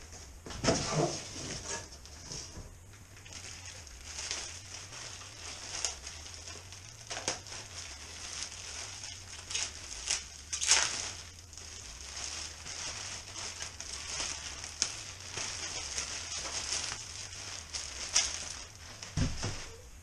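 Cardboard box being handled and a new bicycle wheel pulled out and unwrapped from its plastic bag: irregular crinkling and rustling of plastic and cardboard, with a few sharper crackles, the loudest about a second in and about halfway through.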